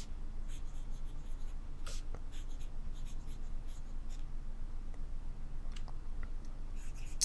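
Nahvalur Nautilus fountain pen with a double broad nib writing cursive on dot-grid notebook paper: the nib scratches across the paper in short, separate strokes.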